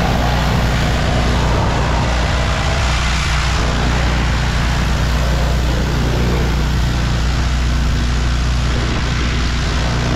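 Gas pressure washer engine running steadily under the continuous hiss of its high-pressure water spray.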